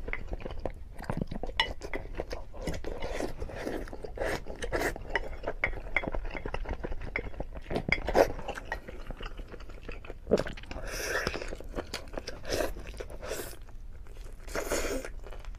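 Close-miked eating of cola-braised chicken: wet chewing and biting, with the wooden spoon clicking and scraping on the ceramic plate. Two longer slurps, one about eleven seconds in and one near the end.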